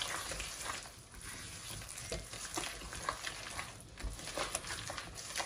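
Browned gram flour (besan) sizzling in a pot as sugar syrup is stirred into it, with a spoon scraping the pot several times at irregular moments.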